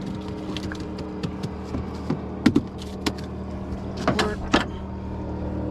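A boat motor running at a steady hum, with scattered knocks and clicks from handling on board.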